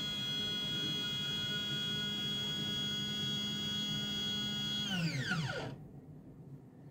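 CNC 3018 Pro's X-axis stepper motor whining at a steady pitch as it drives the spindle carriage along the lead screw. About five seconds in, the whine falls in pitch and stops as the move decelerates to a halt: a 100 mm jog to check the axis's steps-per-mm calibration.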